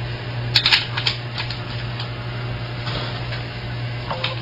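Sharp metallic clicks and ticks of a banjo bracket hook being fitted back onto the hoop by hand. They come in a quick cluster in the first second and a half, with a few more scattered later.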